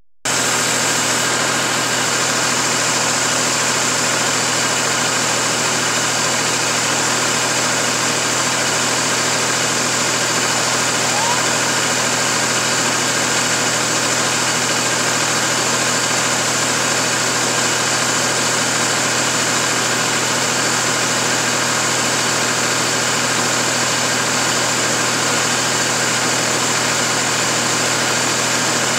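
A steady machine drone, an unchanging hum with a hiss over it, like an engine or motor running at constant speed.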